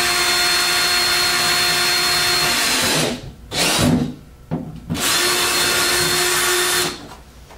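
Cordless drill with a 7/16-inch bit boring a hole through a black plastic enclosure shell, its motor running with a steady whine. It stops about three seconds in, gives a couple of short bursts, then runs again for about two seconds before stopping near the end.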